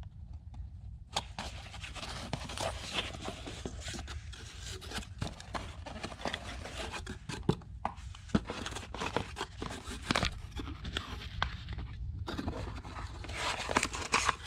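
Close handling noise: irregular rustling and scraping with many sharp clicks, as of small hard objects being picked up and moved about.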